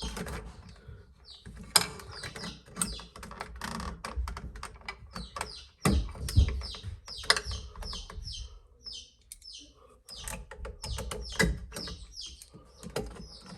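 Irregular clicks, taps and knocks of a screwdriver and mounting screw working against a wall outlet's metal strap and electrical box while the screw is being lined up and driven. A bird chirps over and over in short, quick calls behind the clicking.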